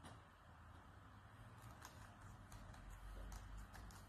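Faint, scattered clicks of laptop keyboard keys, a few single taps spread mostly through the second half, against near silence.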